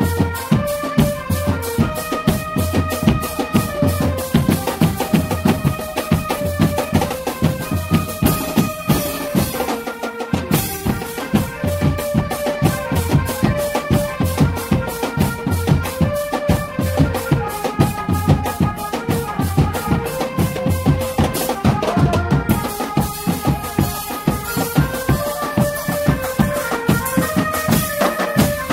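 Drum band music: a fast, steady beat on bass drums, marching drums and cymbals under a simple melody of held notes stepping up and down. The deep bass drum drops out for a moment about ten seconds in, just after a cymbal crash.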